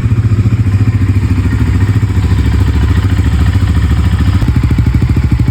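Bajaj Pulsar NS400Z's single-cylinder engine idling steadily through its stock exhaust, with an even, low thudding beat.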